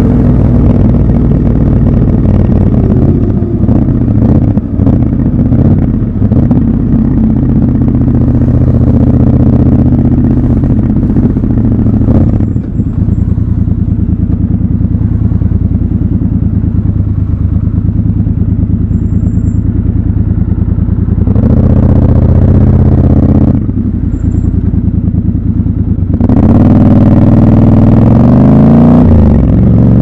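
Triumph Scrambler 1200 XC's 1200 cc parallel-twin engine running in stop-and-go city traffic, heard from the rider's seat. It holds a steady low-rev beat through the middle, is opened up briefly about two-thirds of the way in, then pulls harder near the end with its pitch rising as the bike accelerates.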